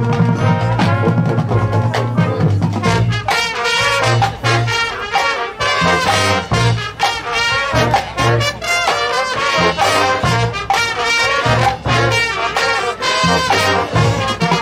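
Marching band playing: brass and percussion. Low brass holds loud sustained notes for the first few seconds, then the full band plays a run of punchy accented hits.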